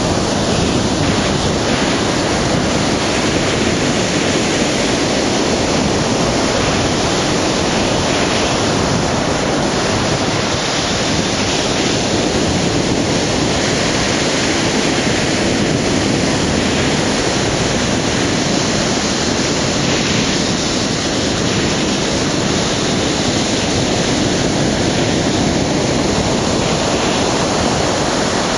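Ocean surf breaking and washing on the shore: a loud, steady rush of wave noise that swells and eases slightly.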